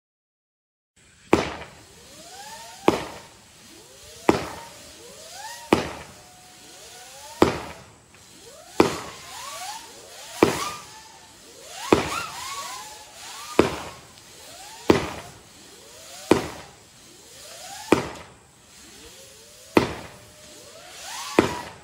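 Legend Fireworks "Killing Shark" 20-shot fireworks cake firing, starting about a second in with a sharp bang about every second and a half. Between the shots come pitched tones that rise and fall.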